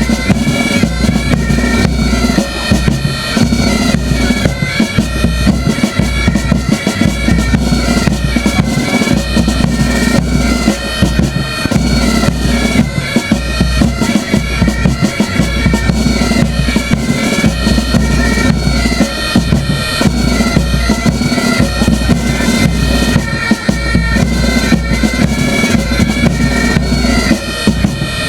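Instrumental music: a wind melody that moves in steps, over a regular, heavy drum beat.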